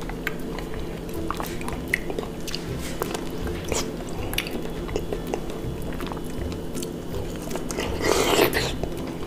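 Close-miked mouth sounds of eating ripe mango: wet biting, chewing and smacking, with scattered short clicks and a louder, longer noisy mouth sound about eight seconds in as the mango is held to the lips.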